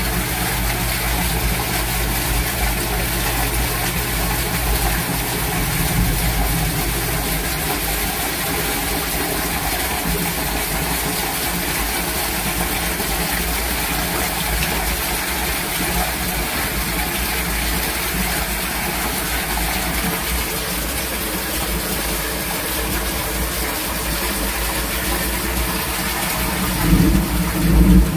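Heavy rain and rushing drainage water, with the steady low hum of a sump pump running in its lift-station basin during a downpour. Part of the hum drops out about seven seconds in, and there is a brief louder surge near the end.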